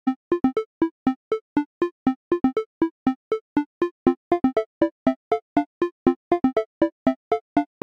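Background music: a quick, even run of short, separate keyboard-like notes, about four or five a second.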